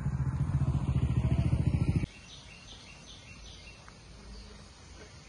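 A small engine running with a fast, even pulse, cut off abruptly about two seconds in. After that, a faint background with a quick run of bird chirps.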